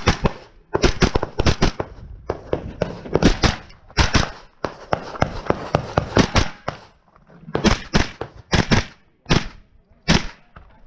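Pistol-caliber carbine firing, mostly in quick pairs of shots, with short pauses between pairs as the shooter moves from target to target.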